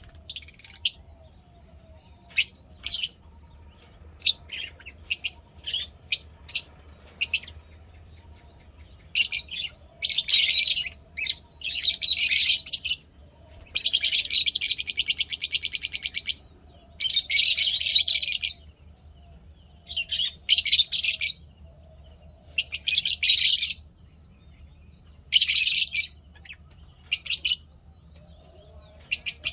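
Caged lovebirds chirping: short, sharp calls at first, then from about nine seconds in repeated bouts of rapid, buzzy chattering, each lasting a second or two.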